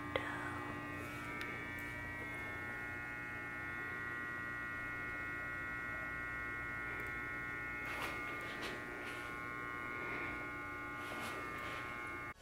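Steady electrical hum with a thin high whine, and a few faint soft clicks.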